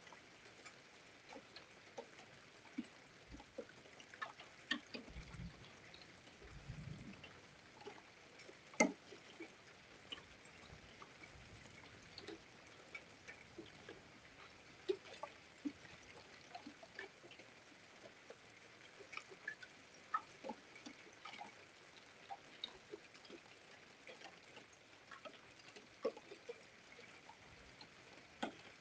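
Scattered raindrops ticking irregularly, a few a second, over a faint steady hiss.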